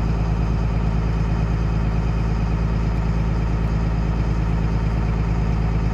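M1078 LMTV's diesel engine idling steadily, heard from inside the cab.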